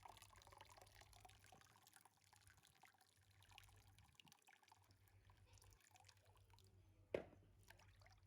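Near silence: faint scattered small clicks, with one sharp knock about seven seconds in.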